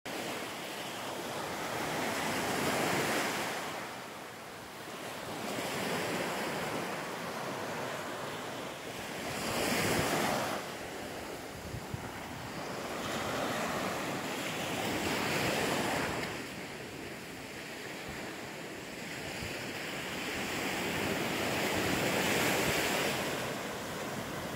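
Small waves breaking and washing up a sandy beach, the surf swelling and fading about five times.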